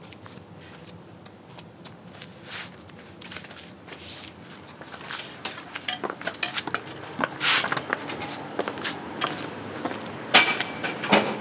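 Footsteps in five-inch stiletto-heel mule slides: irregular heel clicks and short scuffs, growing more frequent and louder through the second half, with the sharpest clicks near the end.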